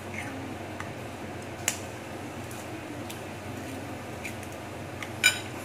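Eggs being cracked over a ceramic bowl: a few faint clicks of shell and two sharp taps, one about a second and a half in and a louder one near the end.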